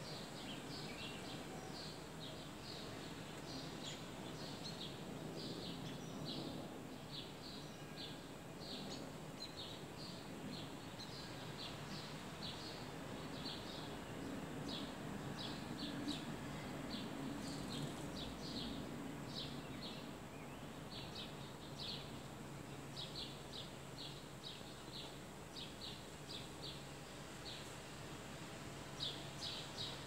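Sparrows chirping: a steady run of short, high chirps, about two a second, with brief pauses, over a steady low background rumble.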